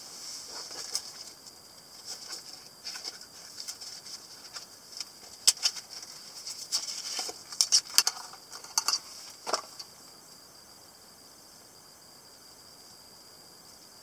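A nylon knife sheath and its plastic side-release buckle handled: fabric rustling and sharp plastic clicks, with a cluster of louder clicks around the middle. For the last few seconds only a faint steady hiss remains.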